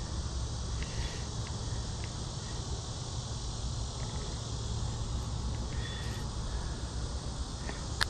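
Steady outdoor ambience of insects buzzing over a low rumble, with a few light clicks.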